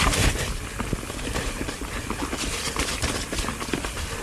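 Transition Spire mountain bike riding down a rough trail: tyre noise over dirt and snow with a constant low rumble and many irregular clicks, knocks and rattles from the bike.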